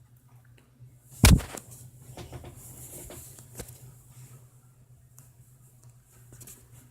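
A single loud knock about a second in, followed by scattered light clicks and rustling as small objects are handled.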